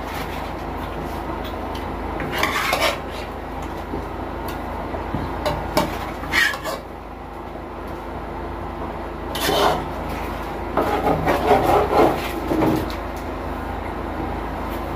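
Utensil scraping and rubbing in a cooking pot: several short rasping strokes, with a cluster of them a little past the middle, over a steady low hum.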